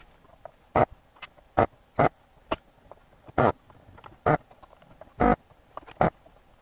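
A spring-loaded desoldering pump (solder sucker) snaps about eight times at irregular intervals, each stroke a short sharp suck of air as it pulls molten solder off the old filter capacitors' leads on the circuit board.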